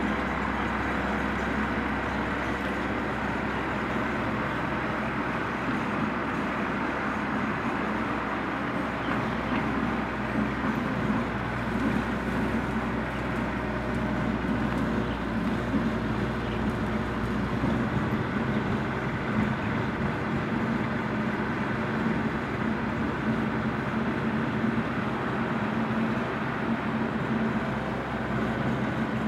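Compact tractor's engine running steadily under load while its rear-mounted mower cuts tall grass and brush, with a constant hum and no changes in speed.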